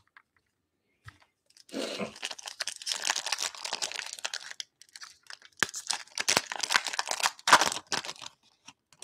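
Foil trading-card pack wrapper being torn open and crinkled by hand, in two spells of crackling starting about two seconds in, the second with sharper rips.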